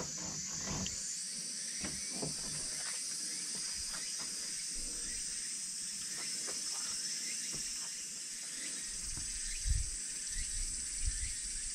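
Insects droning steadily in a high, unbroken chorus, with a few light knocks and a dull thump about ten seconds in.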